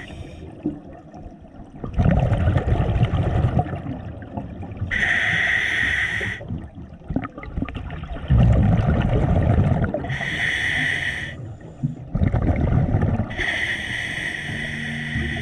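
Scuba diver breathing through a regulator underwater: a hiss on each inhale alternating with the low bubbling of exhaled air, about three breaths.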